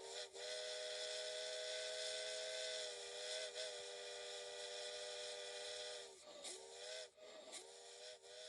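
Steam locomotive chime whistle blowing a chord of several tones over a hiss of steam: one long blast of about six seconds, then a couple of short blasts, the pitch sagging as each blast starts and stops.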